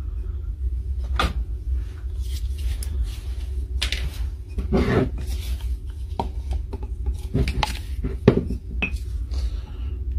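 Metal parts of a brushed impact wrench being handled and set down during reassembly: irregular clinks and knocks, over a steady low hum.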